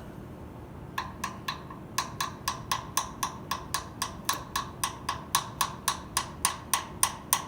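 Rapid, evenly spaced light knocks with a short ring, about four a second, starting about a second in.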